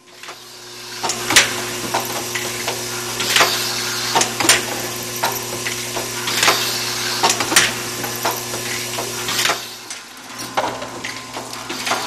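Automatic needle bearing assembly machine cycling: a steady hum with sharp metallic clacks and clicks as the loader, nest and needle-insert unit move, the loudest clacks coming every two to three seconds. The hum drops away about ten seconds in.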